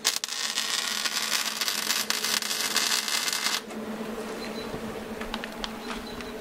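Electric arc welder crackling while a bead is run on a steel tube bumper, for about three and a half seconds, then the arc stops. A steady low hum runs underneath.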